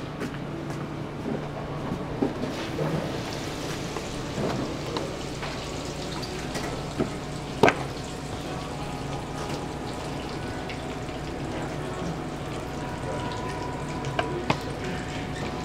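Hands pressing breaded cutlets into fresh panko crumbs in a steel tray: a crisp, crunchy rustle over a steady crackling hiss, with a sharp knock about eight seconds in.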